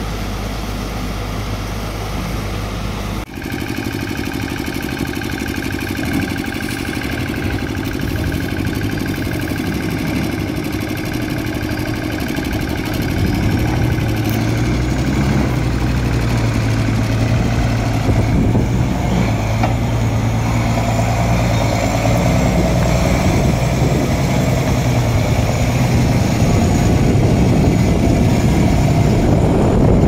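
Rushing river water for the first few seconds, then a steady diesel engine idle from a Zoomlion truck-mounted crane. The engine grows louder about halfway through.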